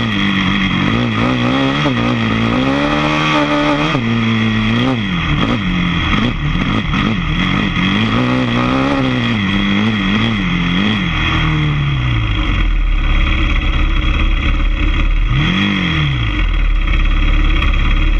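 ATV engine revving up and down over and over as the throttle is worked on the trail, its pitch rising and falling. From about 12 seconds in a steady low rumble takes over, with one more short rev near the end.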